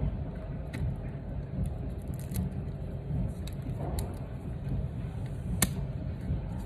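A handful of sharp little clicks and taps from a hand tool working inside an opened iPhone 7, the loudest about five and a half seconds in, over a steady low rumble.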